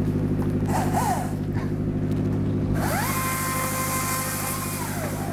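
An engine runs steadily throughout. About three seconds in, a motor whines up in pitch with a hiss, holds for about two seconds, then winds down.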